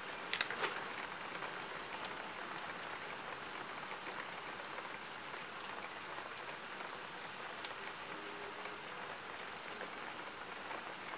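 Thunderstorm rain falling steadily, an even hiss, with a few sharp ticks of drops striking, the loudest of them about half a second in.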